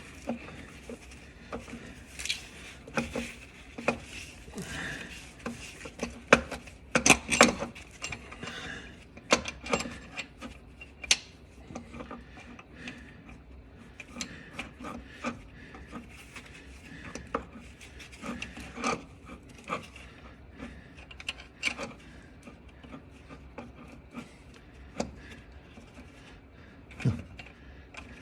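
Irregular clicks, knocks and scraping of hand tools against metal while a car starter is being worked on, some of the knocks sharp and loud.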